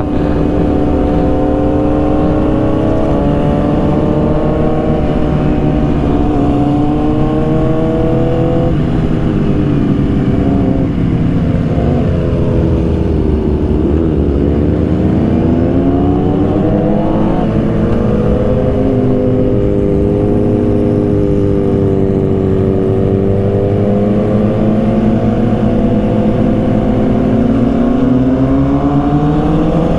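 Motorcycle engine running under way. Its pitch holds, eases off about nine seconds in, and sinks to a low point around fourteen seconds as the bike slows. It then climbs again, holds level for a while, and rises near the end as the throttle opens.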